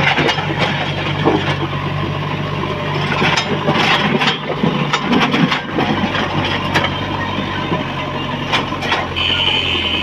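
JCB backhoe loader's diesel engine running steadily while its front loader bucket pushes soil and broken stone, with repeated clanks and knocks through the run. A high steady tone starts near the end.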